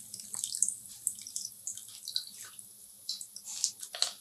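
Blended carrot-and-milk mixture pouring from a steel mixer jar through a plastic mesh strainer into a pot, with irregular splashing and trickling. A little before the end a steel spoon stirs and presses the pulp against the mesh.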